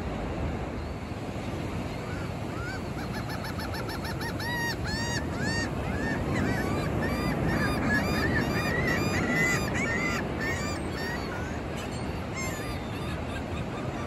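Gulls giving a rapid series of short, arched cries, starting about three seconds in and dying away a few seconds before the end, over the steady wash of ocean surf.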